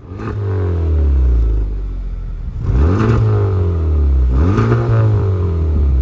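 Honda Civic Type R FK8's turbocharged 2.0-litre four-cylinder engine revved through a Remus Sport exhaust with its valve closed, the car otherwise stock. The revs rise quickly three times and fall away slowly after each.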